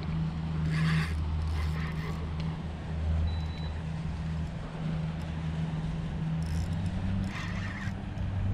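A low, steady mechanical hum. Brief scratchy bursts come about a second in, again at two seconds, and near the end.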